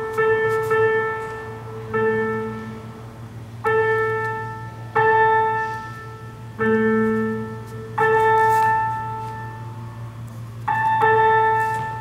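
Synthesizer keyboard played in slow, separate notes and chords, each struck and left to fade. There are about seven in all, one every one and a half to two seconds, over a steady low hum.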